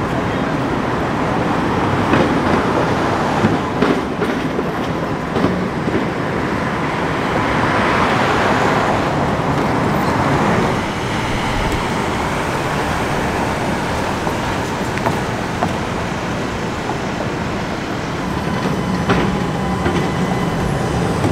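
Electric streetcar running on street rails over city traffic noise, with scattered clicks and clacks from the track, swelling louder for a few seconds from about seven seconds in.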